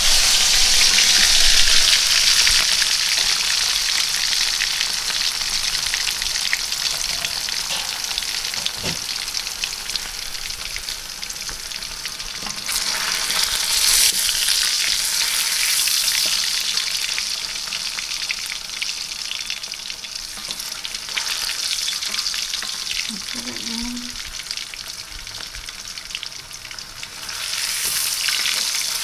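Tempeh frying in hot oil in a wok: a dense, steady sizzle full of fine crackles, loudest in the first few seconds and swelling again around the middle and near the end.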